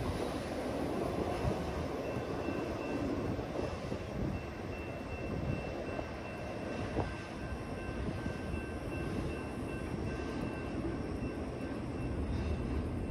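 Steady low rumble of a double-stack freight train moving away down the line just after its last car has passed. A faint, steady high-pitched tone joins about two seconds in.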